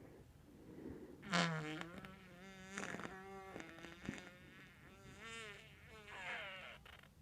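Comic fart sounds with a pitched, fast-wobbling buzz, in several stretches, the loudest about a second in.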